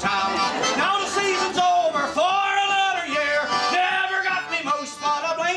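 A man singing a folk song, holding long notes, with the band playing along.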